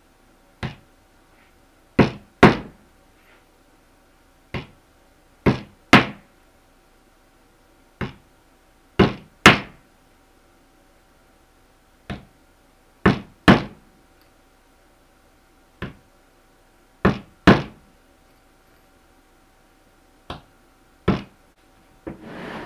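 Hammer driving nails through a beaver hide into a wooden board. Each nail gets a light tap to start it, then two hard blows, repeating about every three and a half seconds for six nails.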